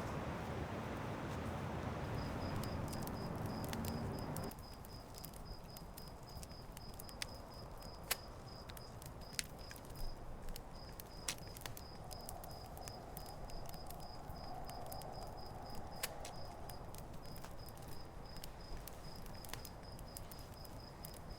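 Quiet outdoor ambience with an insect, cricket-like, chirping in a high, even pulse about three or four times a second, starting about two seconds in. Scattered sharp clicks fall over it. A louder background noise cuts off after about four seconds.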